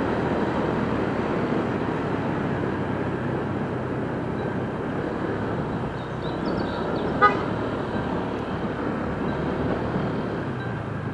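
Steady motorcycle riding noise, engine and wind rumble on the bike-mounted microphone, easing near the end as the bike slows. A single short horn beep sounds about seven seconds in.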